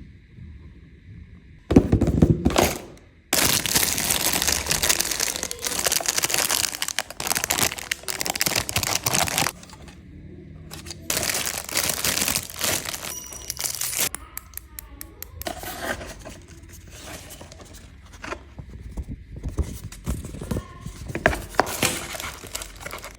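Plastic and cardboard packaging of a model car kit being torn open and crinkled, in long loud stretches of rustling broken by short pauses, with a quick run of sharp clicks around the middle.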